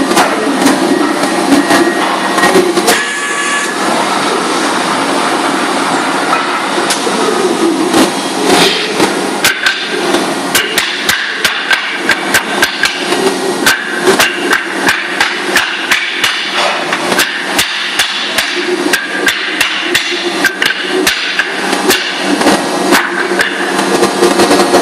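Sharp, repeated knocks of a hand-held block striking the edges of a tall stack of paper sheets to square the stack. The knocks are scattered at first, then come about two a second from about a third of the way in. A steady factory machinery hum runs underneath.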